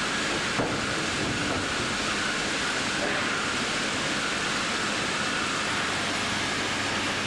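Steady machinery noise of an AKE bandsaw mill line running, a constant rushing sound with a faint hum, and a single click about half a second in.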